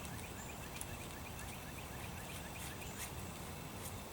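Faint bird chirping, a short high call repeated about three times a second over steady outdoor background noise, with a few light clicks.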